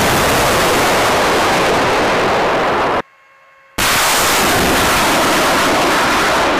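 Two rocket launches from a multiple launch rocket system. Each is a loud, even roar lasting about three and a half seconds that starts and cuts off abruptly, with a short break about three seconds in.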